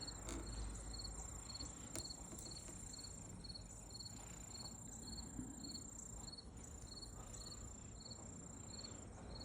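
A cricket chirping steadily, about two short chirps a second, with a thin, faint high steady tone alongside.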